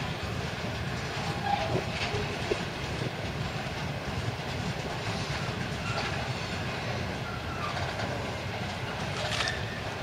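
Loaded coal train moving slowly at a distance: a steady low rumble of hopper wagons and the 82 class diesel locomotives working ahead, with a few wheel clicks and brief faint wheel squeals.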